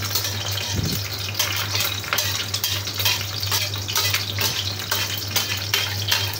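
An egg frying in hot oil in a wok: steady sizzling with fine spattering crackle, and a metal spatula scraping against the pan now and then. A steady low hum runs underneath, and there is one low thump about a second in.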